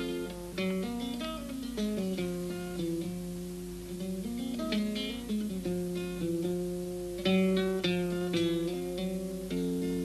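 Background music: an acoustic guitar picking a melody, one plucked note ringing after another.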